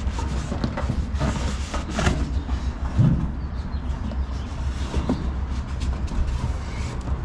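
Packaging and parts being handled in an opened cardboard box: rustling and scattered knocks, with a louder thump about three seconds in, over a steady low rumble.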